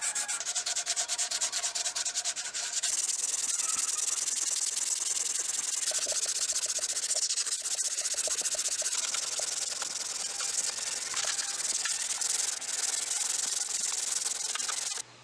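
Sandpaper rubbed by hand against the steel head of a ball peen hammer, in quick back-and-forth strokes at first, then a steadier rubbing hiss as a strip of abrasive is worked around the head. It cuts off just before the end.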